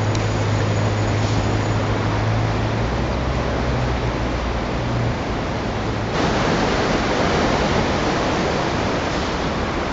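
A steady, dense rushing noise like static or falling water, with a low steady hum beneath it that stops about five seconds in; about six seconds in the rushing noise abruptly gets louder.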